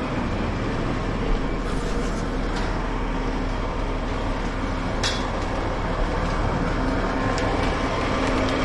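Concrete mixer truck running steadily at the site, with a single sharp metallic clink about five seconds in.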